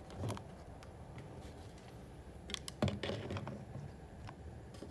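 Scattered clicks and light knocks of portable radios being handled and their buttons pressed, over a low background hiss. The loudest click comes a little under three seconds in.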